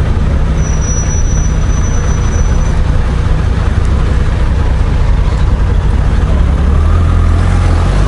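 Honda Gold Wing GL1500's flat-six engine running at low speed in slow traffic, a steady low rumble heard from the bike itself. A faint thin high whistle sounds briefly near the start.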